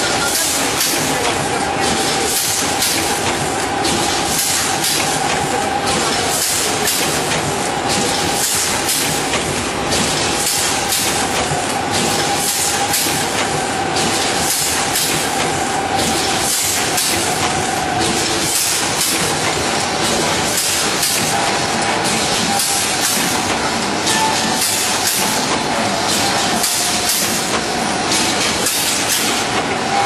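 Rotary pouch packing machine running while it fills and seals microwave popcorn bags. It makes a steady mechanical noise with a constant whine and a regular hiss about once a second.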